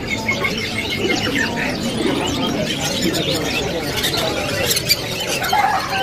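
Many caged songbirds of different kinds chirping and whistling at once, a dense overlapping chorus of short calls, with one held whistle in the first second or so.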